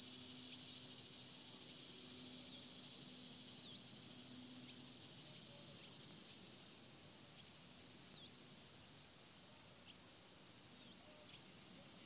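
Barn swallows giving short, high chirping calls at scattered moments as they fly overhead, over a faint steady high-pitched hum of insects in the grass.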